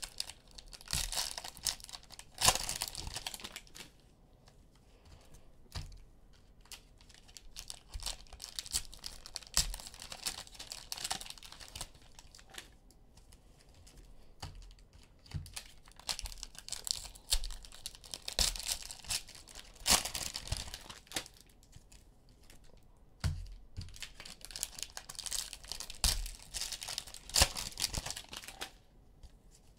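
Cellophane wrappers of basketball card packs being torn open and crinkled: irregular bursts of crackling with small clicks, separated by quieter stretches.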